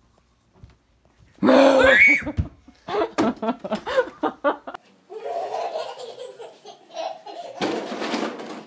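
A girl laughing loudly in quick bursts, starting about a second and a half in.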